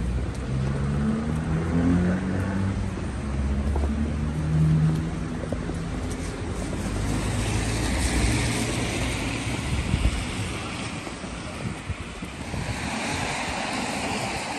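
City street at night: a steady rumble of passing road traffic mixed with wind buffeting the phone's microphone. The low rumble gives way to a broader hiss in the second half.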